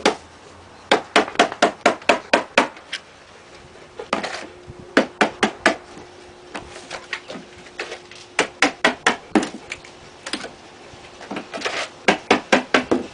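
Claw hammer tapping on the wooden framing of an old trailer entry door in quick runs of light blows, about five a second, with short pauses between the runs, knocking loose framing and paneling that have stuck together over the years.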